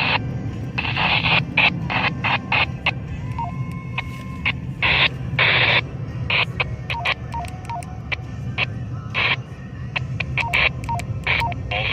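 NOAA Weather Radio receiver with the snow squall warning broadcast breaking up: short, chopped bursts of hiss and clipped fragments of the automated voice, with a few brief beeps, over a steady low hum.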